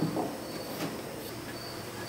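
Light knocks and rubbing as a chrome-bezel rear side marker lamp is handled and pressed into its opening in a 1970 Dodge Challenger's quarter panel, with a faint high chirp coming back about once a second.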